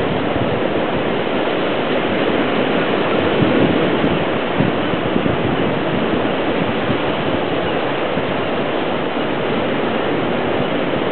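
North Sea surf breaking over and washing between rocky shore ledges, a steady loud rush of water.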